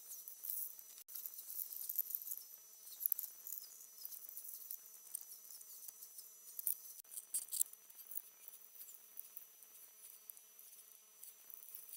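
Faint, irregular clicking and scratching of hand work on the underside of a car body, as wiring and lines are pulled out, over a faint steady hum.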